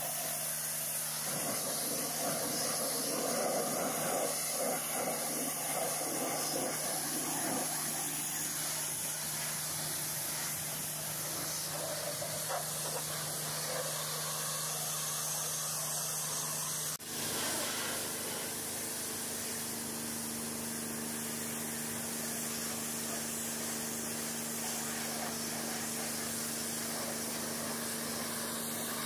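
Hot-water pressure washer jet (2000 PSI at 5 GPM) hissing as it blasts the truck's tyres and wheels, over a steady machine hum. The sound cuts off abruptly about halfway through and resumes with the hum at a slightly higher pitch.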